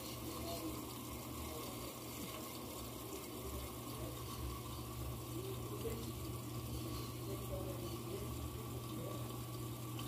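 Electrolux 6 kg top-loading washing machine filling: tap water runs in under strong pressure through the dispenser into the tub, a steady rushing of water over a constant low hum.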